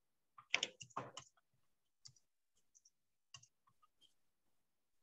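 A quick cluster of clicks and small knocks about half a second in, then a few faint single clicks.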